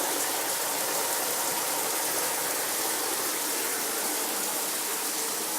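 Water spraying steadily from a running shower head, an even rushing hiss.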